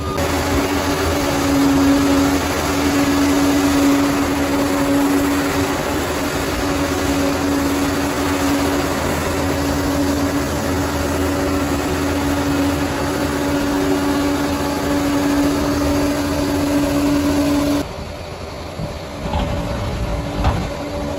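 Bulldozer's diesel engine running steadily at working speed with a held whine over it. Near the end the sound drops abruptly to a quieter engine with a few knocks.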